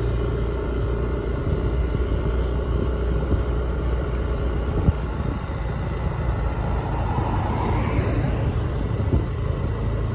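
Steady low rumble of road traffic, with a car passing about seven to eight seconds in.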